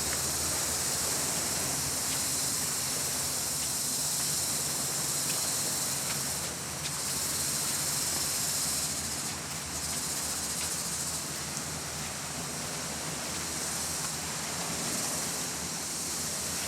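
Steady high-pitched insect chorus buzzing without a break, dipping slightly a couple of times.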